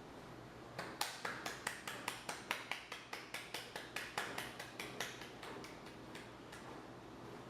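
Sparse hand-clapping, about five claps a second, starting about a second in and thinning out near the end.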